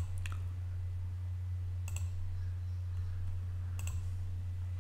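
A computer mouse clicking: two clicks close together at the start, one about two seconds in and one near the end, over a steady low electrical hum.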